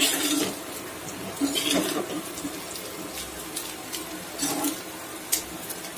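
Perforated steel spatula scraping and turning shallow-fried taro (colocasia) slices in a kadai, with scattered clicks of metal on the pan over a light sizzle of oil on a low flame.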